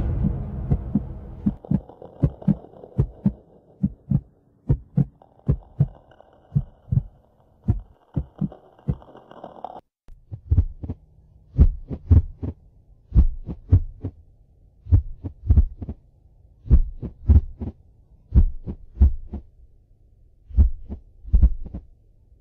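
Heartbeat sound effect. Quick, steady thumps over a low drone that fades and then cuts off suddenly about ten seconds in. After that come slower double lub-dub beats, one pair every one and a half to two seconds.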